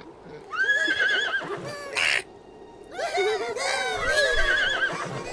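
Unicorns whinnying: one wavering whinny starting about half a second in, a short rush of breath like a snort at about two seconds, then a longer whinny with overlapping voices from about three seconds.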